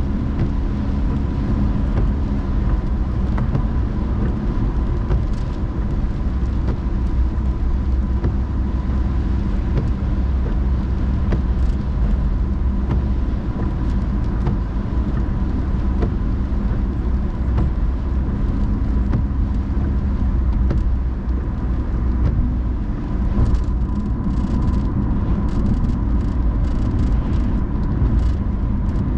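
Car driving on a rainy road: a steady low rumble of engine and tyres, with a faint high ticking that comes in over the last few seconds.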